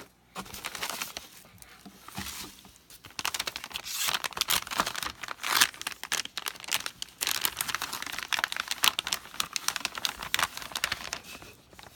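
Metallized anti-static shielding bag crinkling as hands open it and slide a circuit card out, a run of sharp irregular rustles that grows louder about three seconds in.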